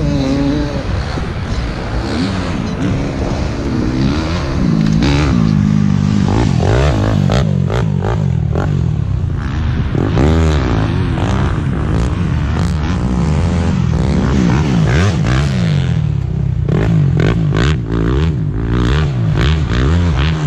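Off-road motorcycle engines revving up and down again and again over a steady low engine drone, with scattered clatter.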